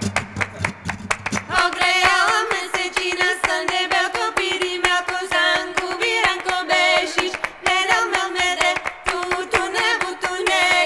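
Background music: a singing voice over a steady held drone note, with sharp clicking percussion. The voice comes in about a second and a half in.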